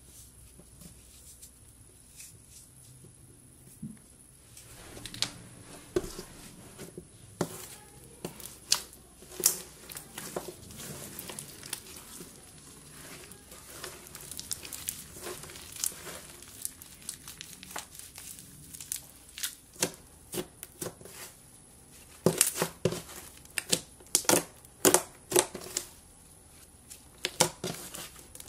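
Slime being pressed, kneaded and stretched by hand: after a quiet start, sharp crackling clicks and pops set in about five seconds in, coming thickest and loudest in a quick run over the last several seconds.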